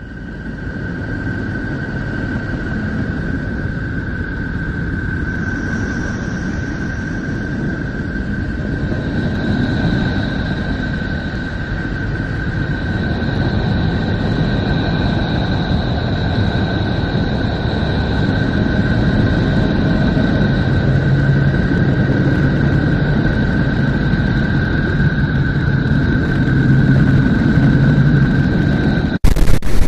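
Planetary 'space sound' drone: a steady low rumble with a held high whistling tone, joined by a second, higher tone about nine seconds in and a pulsing low hum in the last third. It cuts off abruptly near the end.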